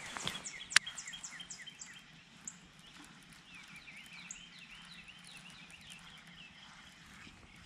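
Dawn chorus of many birds chirping and calling at once, quick short notes overlapping, with one sharp click under a second in.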